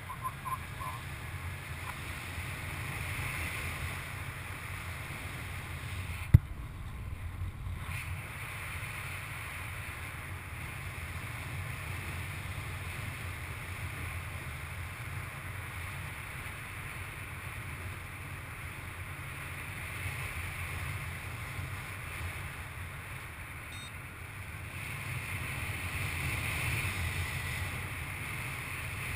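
Airflow buffeting the microphone during paraglider flight: a steady low rush of wind noise that swells a little near the end. One sharp click about six seconds in.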